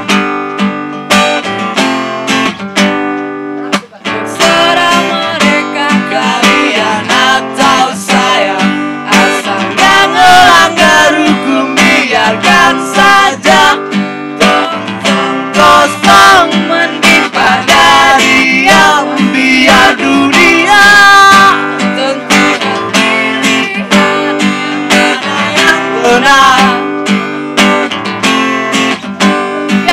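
Acoustic guitar strummed live, with a woman and a man singing into microphones over it; the music drops out briefly about four seconds in, then the singing carries on over the chords.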